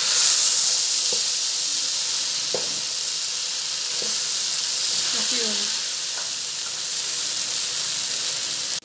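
Cut okra frying in hot oil in a wok, a steady sizzling hiss, loudest in the first second just after a splash of vinegar has gone into the pan, while a spatula stirs and turns the okra.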